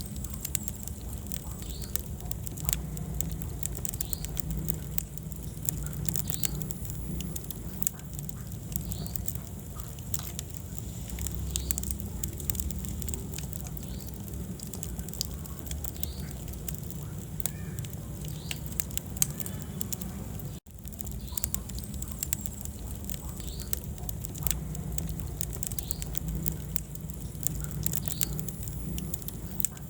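Wood fire in a fireplace crackling, with frequent sharp pops and snaps over a low steady rumble of burning. The sound drops out for an instant about two-thirds of the way through.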